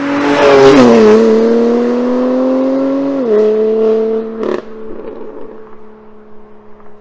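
BMW M3 Competition's twin-turbo inline-six accelerating hard past, its note dropping sharply as it goes by, then climbing steadily until an upshift about three seconds in. A single sharp crack comes about a second after the shift, and the engine fades into the distance.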